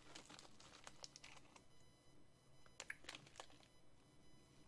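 Faint, sparse crinkling of a snack wrapper being handled, a few small crackles over near silence.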